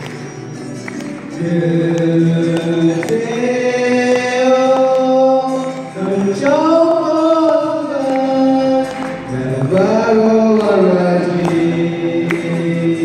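Live acoustic song: a singer holding long notes that bend up and down over a strummed acoustic guitar, starting softly and growing louder about a second and a half in.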